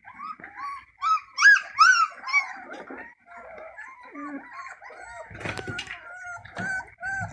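Puppy whining and yelping: a rapid string of short, high cries that rise and fall, loudest about a second and a half in. A few dull bumps about five and a half seconds in.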